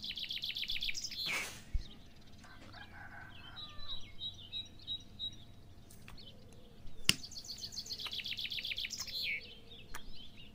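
Small birds chirping: a burst of fast trilled chirps at the start and another about two-thirds of the way through, with softer scattered chirps between. A single sharp click comes just before the second burst.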